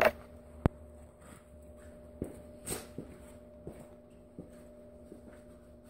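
Footsteps on a concrete garage floor, a scattered string of soft knocks, after a single sharp click about half a second in. A faint steady hum runs underneath.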